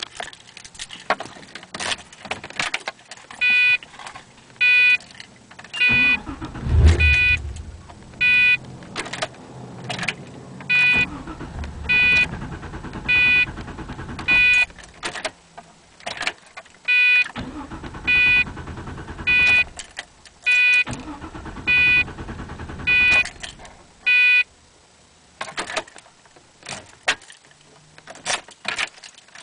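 A Pontiac GTO's warning chime dings about once a second, starting a few seconds in and pausing briefly near the end. Under it come scattered sharp clicks and stretches of low rumbling, the loudest burst at about seven seconds, as the car is tried with a no-start fault.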